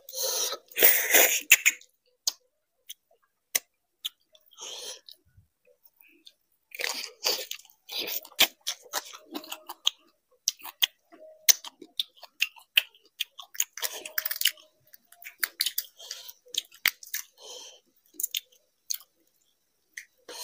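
Close-miked chewing with crunches and irregular wet mouth clicks and smacks, loudest in the first couple of seconds.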